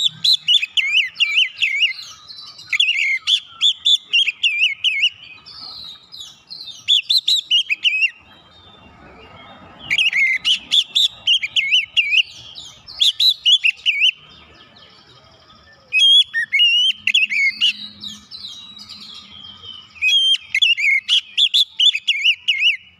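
Oriental magpie-robin in full song: loud, rapid whistled notes sliding up and down, sung in phrases of one to four seconds with short pauses between.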